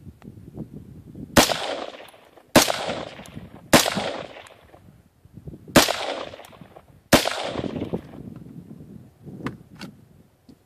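Five unsuppressed shots from a Daniel Defense M4 rifle in 5.56 NATO, fired one at a time about one to two seconds apart. Each shot rings out with an echoing tail of about a second.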